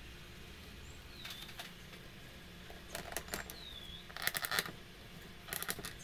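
Wooden parts of a hand-cranked wooden bird automaton clicking and clattering in about four short, rapid clusters as the crank handle is fitted and turned. A bird chirps faintly a few times in the background.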